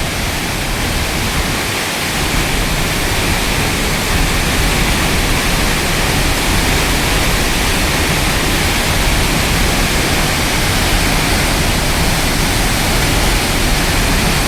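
Waterfall: heavy falling water making a loud, steady rush that grows a little louder over the first few seconds.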